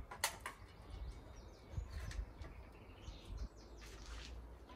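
Scattered short bird chirps over a low rumble, with one sharp click about a quarter of a second in.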